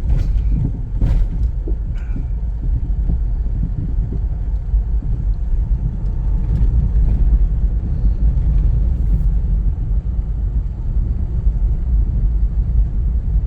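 Nissan R50 Pathfinder 4x4 on the move: a steady low rumble of engine and tyres, with a few short knocks in the first couple of seconds.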